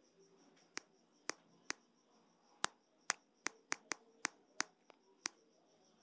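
About a dozen sharp clicks at uneven intervals, a few close together near the middle, over a faint, steady, high-pitched pulsing tone.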